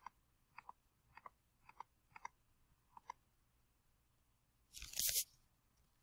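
Faint light clicks, mostly in close pairs about half a second apart, from pen strokes being put down on a digital drawing screen as "= 8,000" is written. About five seconds in comes a short, louder scuff of handling noise.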